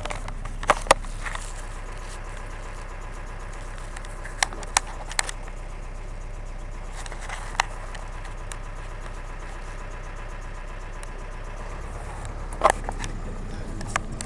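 Bus driving over a rough dirt and gravel road, heard from inside the cabin: a steady low engine and road rumble, with a handful of sharp knocks and rattles from jolts at irregular moments. The loudest jolt comes near the end.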